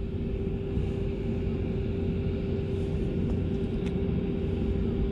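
Steady low rumble with a constant droning hum, like an engine or motor running.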